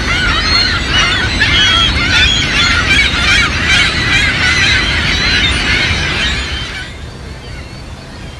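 A gull colony calling, many birds squawking over one another at once, over a low rumble. The calls stop abruptly about seven seconds in, leaving only a quieter low rumble.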